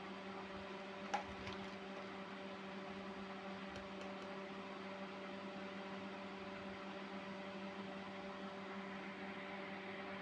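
A steady low hum with overtones over faint hiss. One sharp click about a second in, and a couple of faint ticks around four seconds in.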